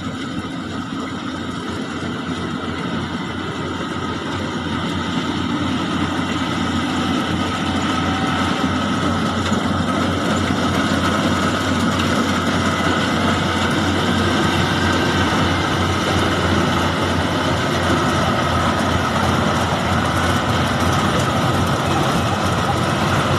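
Heavy engine of a rice harvesting machine running steadily. It grows louder over the first several seconds, then holds level.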